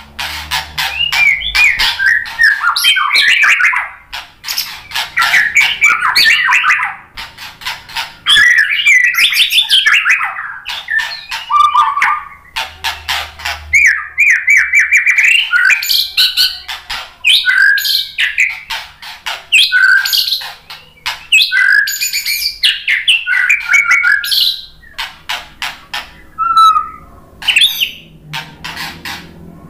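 White-rumped shama (murai batu) singing a loud, varied song: rapid chattering runs mixed with whistled phrases, in bursts broken by short pauses.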